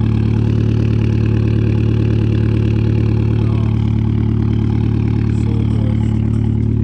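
2012 Fiat 500 Abarth's turbocharged four-cylinder engine idling steadily through a straight-pipe exhaust with only a sport cat and no muffler. The idle is even, with no change in pitch, the random misfire cured by a cloned replacement ECU.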